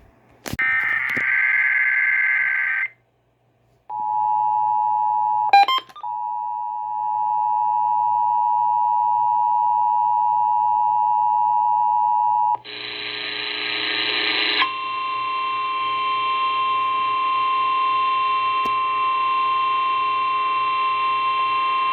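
Emergency Alert System test alert from a radio: a short harsh burst of data tones, then the steady two-tone attention signal held for about eight seconds with a brief blip near its start, then another harsh data burst and a single steady alert tone that runs on.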